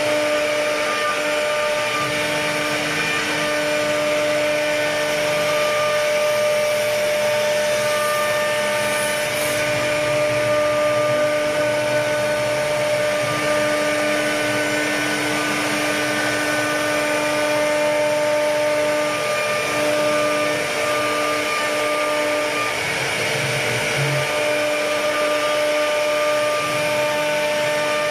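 CNC router spindle running steadily as it carves wood: a continuous machine whine made of several fixed tones over a noisy hiss, with some tones dropping out and returning.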